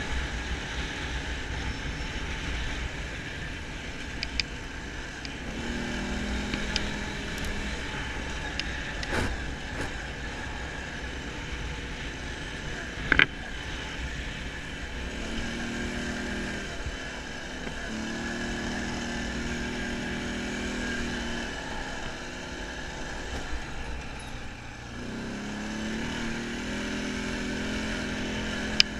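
Off-road vehicle's engine running at low, steady revs while crawling over a rough dirt track, with scattered knocks from the ground, the loudest about 13 seconds in.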